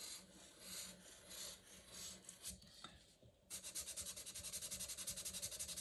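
Fibre-tipped pen tip scratching across paper: slow wavy strokes come as soft swells, then from about three and a half seconds in it turns to quick back-and-forth scribbling, about nine strokes a second, as a small patch is filled in.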